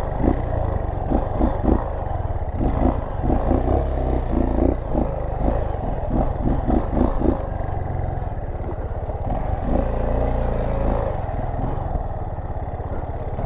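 Dirt bike engine running at low trail speed, with a run of quick rattling knocks from the bike over the rough ground during the first half.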